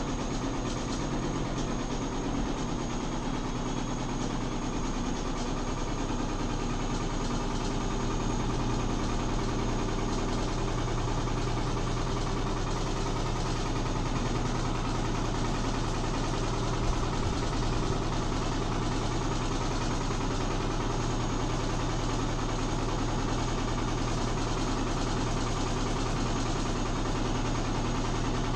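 Midea HealthGuard front-load washing machine accelerating into its spin cycle: a steady mechanical rumble and hum that slowly grows louder, with one brief knock about seventeen seconds in.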